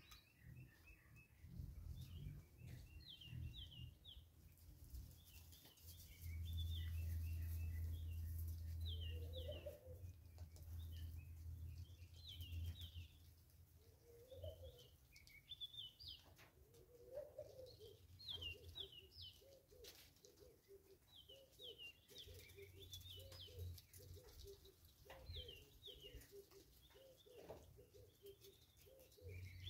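Small wild birds chirping over and over in short high calls. In the second half a lower-pitched call repeats roughly once a second, and a low rumble runs for several seconds in the middle.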